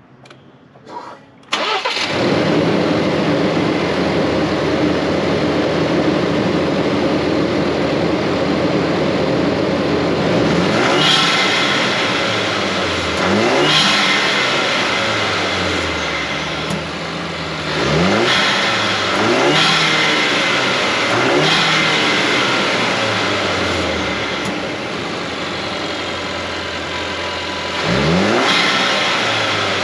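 2019 Ford Ranger's 2.3-litre EcoBoost turbocharged four-cylinder, fitted with an Airaid cold air intake, starting about a second and a half in and settling to idle. It is then revved in short throttle blips about six times, each a quick rise and fall in pitch, heard from in front of the truck with the hood open.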